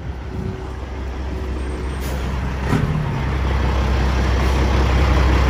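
Diesel engine of a custom Peterbilt semi truck running with a deep, low rumble that grows steadily louder, with a short sharp noise about two and a half seconds in.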